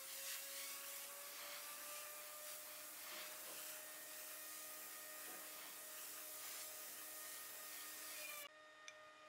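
Gravity-feed air spray gun hissing steadily as it sprays finish onto wood, cutting off shortly before the end. A steady hum with a slowly wavering pitch runs underneath.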